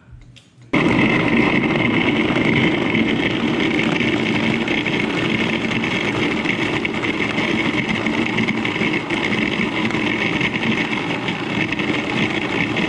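Cuisinart food processor motor starting suddenly under a second in and running steadily, chopping apple and orange into a chunky, saucy purée.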